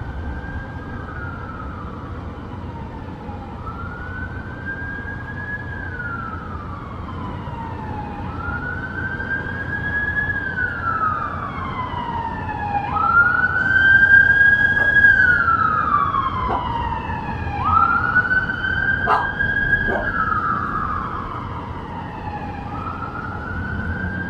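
Emergency vehicle siren on a slow wail, each rise and fall taking about four seconds. It grows louder toward the middle and then fades as it passes, over a low city rumble.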